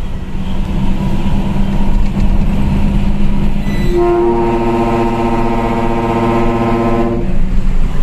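Fuso Fighter dump truck's diesel engine running under way, heard from inside the cab. About four seconds in, a ship-style trumpet air horn sounds one steady multi-tone blast lasting about three seconds.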